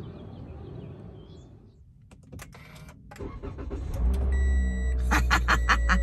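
Car door shutting and a few clicks inside the cabin, then the car's engine starting about four seconds in and running with a steady low hum, while the dashboard sounds electronic warning chimes and a quick run of even clicks.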